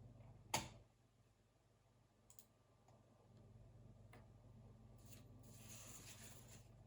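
A single sharp click from a computer desk about half a second in, then two or three faint clicks and a soft brushing rustle near the end, over a low steady hum.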